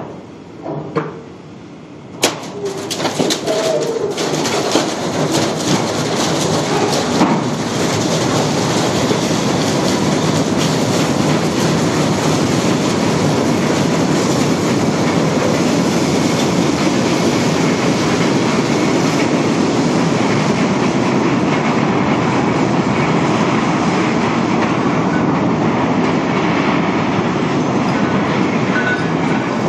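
Steel barge sliding down a shipyard slipway at launch: a sharp crack about two seconds in, then a loud, steady grinding rumble as the hull runs down the ways.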